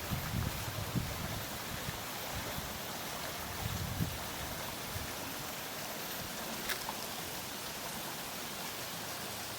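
Steady rushing of a waterfall's falling water. Wind buffets the microphone with low gusts for the first few seconds, then dies away.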